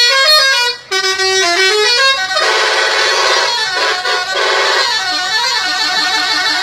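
Indonesian bus 'telolet' horns: multi-tone musical horns playing stepping, tune-like phrases. After a brief break about a second in, more horns join about two seconds later, and several horn melodies sound over one another.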